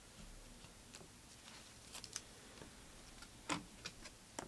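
Faint, scattered clicks of glossy Panini Prizm trading cards being flicked through by hand, the loudest one a little past halfway.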